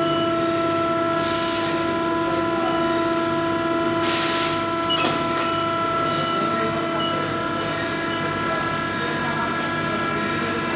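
Steady machine hum at a constant pitch, with two short hisses about one and four seconds in and a click about five seconds in.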